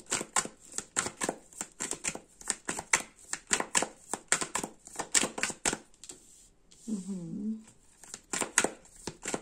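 A deck of tarot cards being shuffled in the hands: a quick run of card clicks, about three or four a second. The run pauses about six seconds in, a short hum of voice follows, then a few more clicks.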